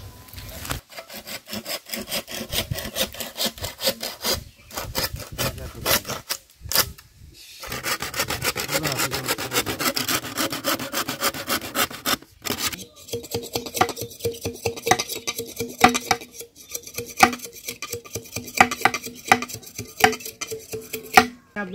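Hand saw cutting through green bamboo: quick back-and-forth rasping strokes in runs broken by short pauses, the strokes coming slower and more spaced out over the second half.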